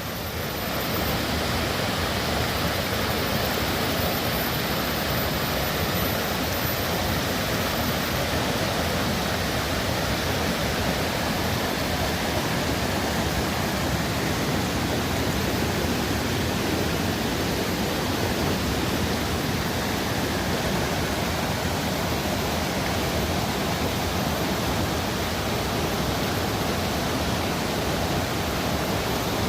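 Running water rushing steadily and evenly, with no change in strength.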